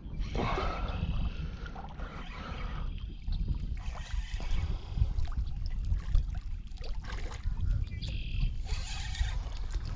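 Wind rumbling on the microphone, with bursts of splashing from a hooked bass being fought at the water's surface.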